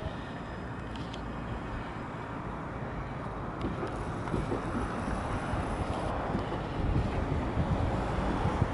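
Wind buffeting the microphone over a low, steady rumble of an approaching tram and street traffic, growing a little louder in the second half.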